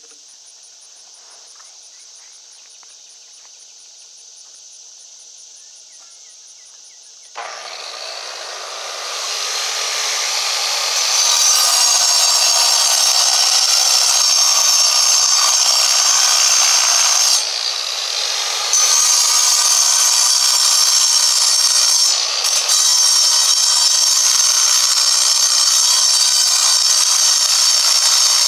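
Angle grinder cutting dry into a stone block, starting suddenly about seven seconds in and building to a loud, steady grinding hiss. The sound eases twice, briefly, as the disc comes off the stone. Before it starts there is only a faint, steady high whine.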